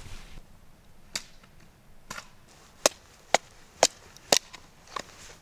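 Hatchet chopping firewood, about seven sharp chops at roughly half-second intervals starting about a second in.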